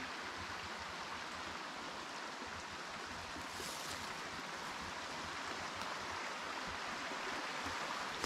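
A creek running steadily, an even rushing of water.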